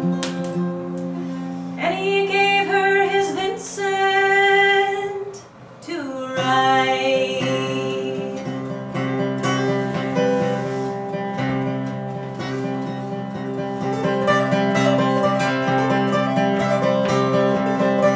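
Music: an acoustic guitar playing an instrumental passage of a folk ballad, with several long-held notes between about two and five seconds in.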